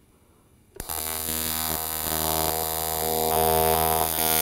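AC TIG welding arc on aluminum: the arc strikes with a sharp crackle about a second in, then buzzes steadily with a deep hum beneath, growing slightly louder, and cuts off suddenly near the end.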